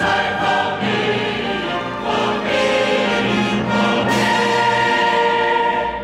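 Background music: a choir singing with orchestral accompaniment, ending on long held chords.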